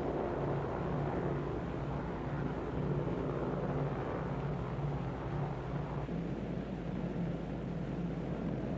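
Piston-engine propeller aircraft in flight: a steady engine drone.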